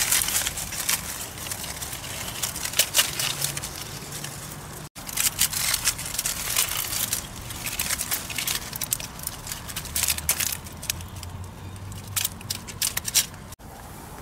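Dry twigs and dead leaves crackling and rustling in quick, irregular bursts as kittens paw and scramble through brush.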